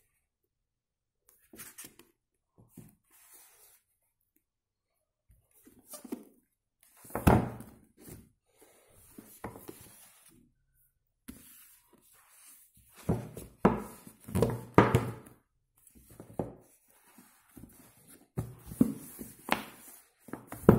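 Paperback books being handled on a wooden tabletop: scattered knocks and thuds as the books tip over and fall flat. The loudest thud comes about seven seconds in, with a run of knocks later as they are picked up and laid out again.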